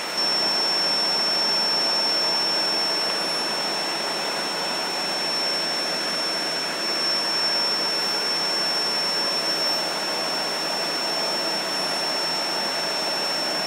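KEPUNI orbital automatic TIG welding machine running a weld on a pipe joint: a steady hiss with a high, steady whine.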